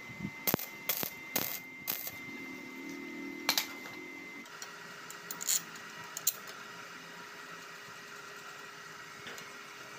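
Sharp metallic clinks and taps of tools against the steel shock absorber mount, several in the first few seconds and a few more about five to six seconds in.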